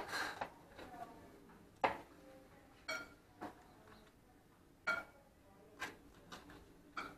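Carving knife and fork clinking and scraping against a stainless steel roasting pan while slicing roast meat: about eight sharp metallic clinks spaced roughly a second apart, a few of them ringing briefly.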